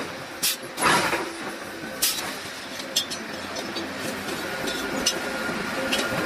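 Forging-shop noise: a steady machinery hum under scattered sharp metal clanks, the loudest about a second in. A faint high whine joins about four and a half seconds in.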